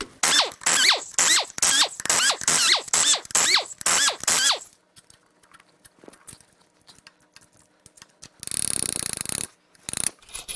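Main bearing cap bolts of a Toyota 2UZ-FE V8 block being backed out with a ratchet: a quick run of strokes, about three a second, each with a short squeak, for the first four and a half seconds. Then a brief, one-second buzzing whir of the tool near the end.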